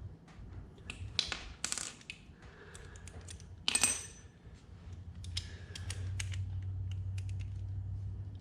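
Metal hand tools and sockets clicking and clinking as they are handled, with one louder ringing metallic clink about four seconds in. A low steady hum comes up in the second half.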